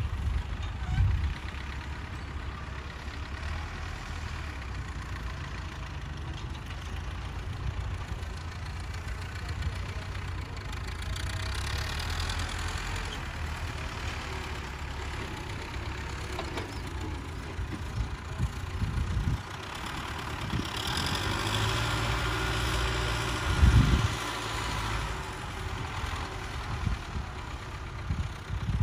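Farm tractor engine running steadily as it pulls a plough through the soil, growing louder about two-thirds of the way through, with a few brief low thumps, the loudest near the end.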